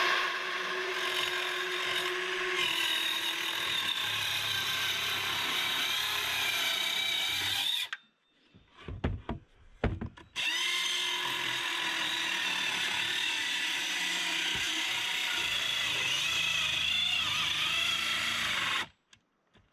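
Cordless jigsaw cutting through a 2x6 board in two steady runs of about eight seconds each, with a short pause and a few knocks between them. The two runs are the two passes of one cut, made from each side because the blade doesn't reach all the way through the board.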